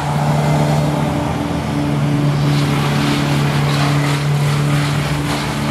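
Heavy engine of a tree service's boom truck or crane running steadily at a constant speed, with a low, even hum.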